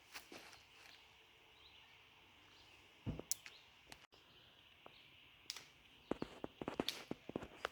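Faint outdoor ambience with a steady high hiss, broken by scattered light clicks and taps: one heavier knock about three seconds in and a quick cluster of clicks near the end.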